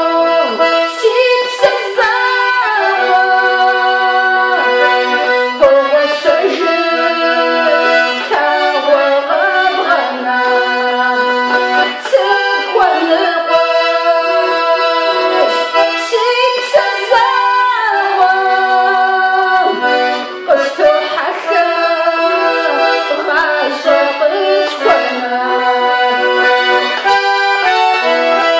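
An accordion playing a tune, with a woman singing along over it at times.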